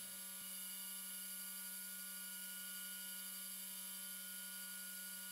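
Metal lathe running with no cut, a steady hum from its spindle and drive with a few high steady tones over it. The headstock has been freshly rebuilt with new spindle bearings.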